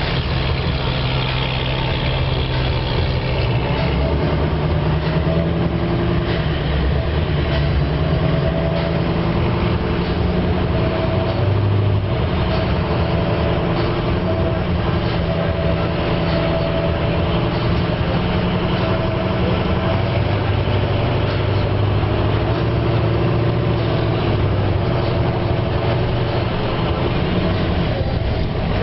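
A car's engine and road noise heard from inside the cabin while driving slowly, a steady hum whose pitch drifts gently up and down with speed.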